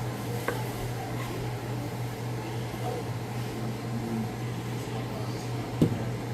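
Steady hum of a kitchen appliance's fan motor, with a faint click about half a second in and a sharp knock near the end.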